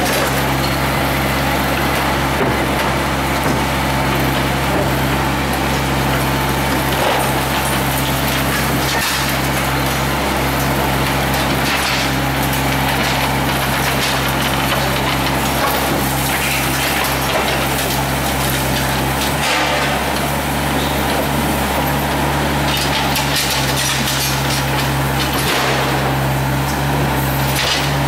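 Excavator's diesel engine running steadily with a deep hum while an MTCR 04 hydraulic demolition shear crunches through reinforced concrete, with scattered short cracks as the concrete breaks.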